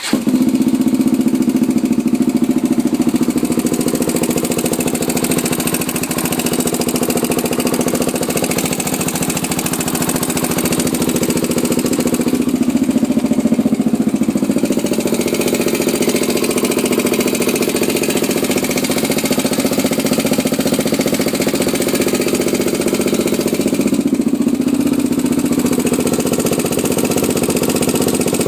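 Honda TRX400EX ATV's single-cylinder four-stroke engine idling steadily with a ticking noise, its pitch shifting slightly twice; the owner is unsure what the tick means.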